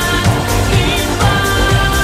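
Background music with a steady beat: a wavering melody line, then held notes from about a second in.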